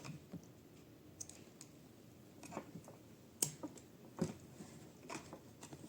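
Scattered sharp plastic clicks and knocks from handling the leak detector and its parts, with the sharpest click about three and a half seconds in.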